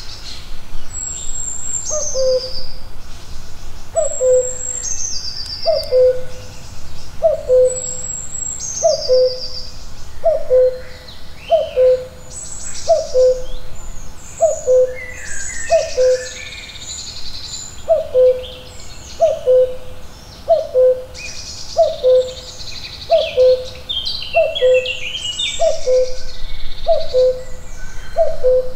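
Woodland birdsong: one bird repeats a low, hooting call about every second and a half, each a short higher note dropping to a lower one, while songbirds sing higher phrases over it, among them a falling trill heard three times in the first few seconds.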